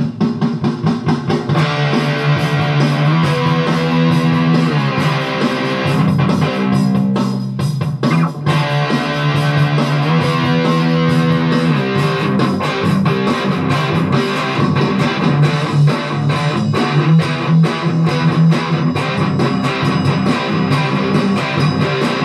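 ESP LTD EC-256 electric guitar played in a continuous run of picked chords and single notes.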